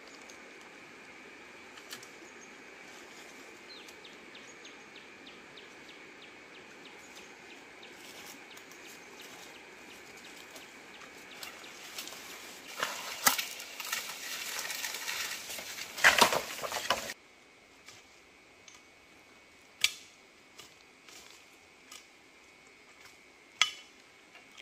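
Brush rustling and footsteps crunching as a person climbs down through dense vegetation with a bamboo pole and steps onto a gravel stream bank, loudest with sharp crunches about 12 to 17 seconds in. Later a few isolated sharp clacks, like stones knocked underfoot.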